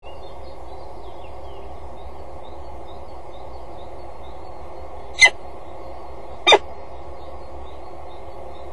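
Two short, sharp bird calls, about five and six and a half seconds in, over a steady background hum and hiss, with faint chirps of small songbirds in the distance.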